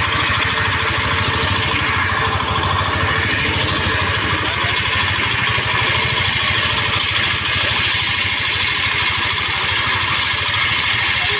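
Engine of a wooden motorboat running steadily, with a fast, even chugging beat.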